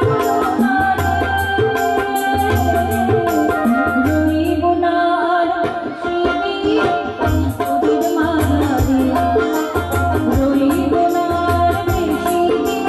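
A woman singing a Bengali devotional song to harmonium accompaniment, with hand-drum strokes and small percussion keeping the rhythm.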